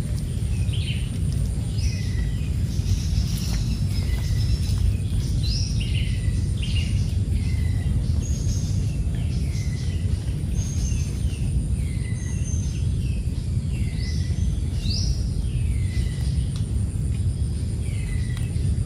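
A bird calling over and over, each call a short note dropping sharply in pitch, about one or two a second. Underneath runs a steady low rumble of the swollen stream.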